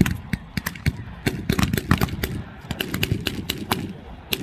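Battle-reenactment gunfire with blanks: many overlapping shots at an irregular pace of several a second, including automatic fire from a Browning Automatic Rifle.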